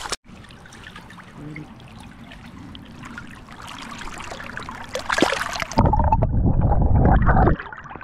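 River water splashing and trickling close around a brown trout held in the shallow current. About two thirds of the way through comes a loud, muffled rush of water lasting under two seconds, heavy in the lows with the highs cut off, as if heard under the surface.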